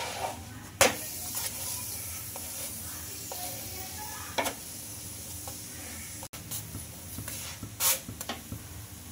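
Oil sizzling under a spinach paratha frying on a non-stick tawa, with a wooden spatula scraping and knocking against the pan as the paratha is flipped and pressed down: a steady sizzle with a few sharp knocks, about a second in, midway and near the end.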